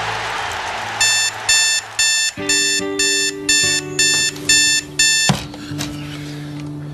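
Digital alarm clock beeping: nine short electronic beeps, about two a second, cut off suddenly with a knock after about four seconds.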